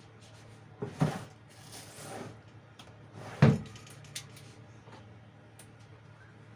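Kitchen handling sounds as a pot of boiled meat is dealt with: a knock about a second in, a soft rushing hiss for about a second after it, and a louder clunk about three and a half seconds in, followed by a few faint clicks.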